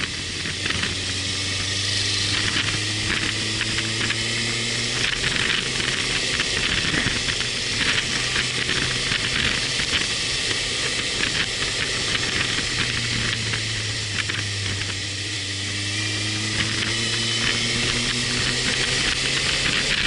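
Motorcycle engine running while riding. Its pitch rises twice as the revs climb, under a steady rush of wind noise on the microphone.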